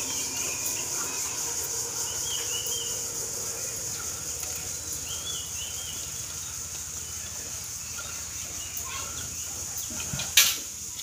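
Birds chirping now and then over a steady high insect drone, with one sharp knock near the end.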